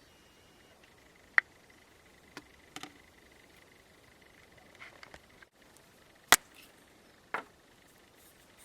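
A few scattered sharp clicks and taps of something being handled, the loudest about six seconds in, over faint background.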